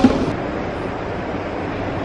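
Subway train running in an underground station: a steady low rumble with a hiss over it, and a short knock right at the start.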